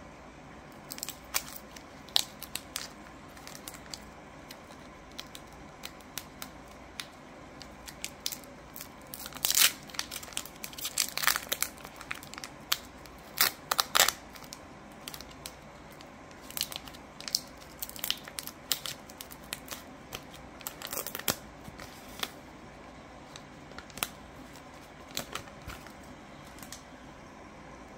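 A foil Pokémon trading-card booster pack torn open by hand: sharp crinkling and tearing of the foil wrapper, loudest and most frequent in the middle, then a few scattered crinkles as the contents come out.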